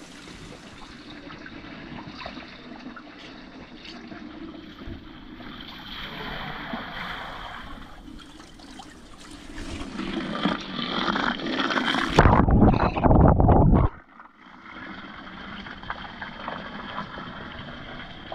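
Water running and splashing at a working water mill, a steady rush that builds to a loud, deep surge for about two seconds past the middle, then drops suddenly and carries on more quietly.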